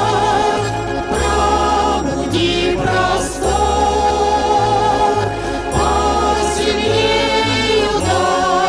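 A vocal ensemble sings in several-part harmony with vibrato over an instrumental accompaniment with a moving bass line.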